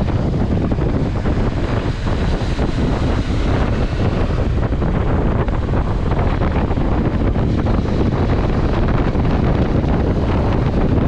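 Strong, steady wind rushing over the microphone, with a low rumble beneath it.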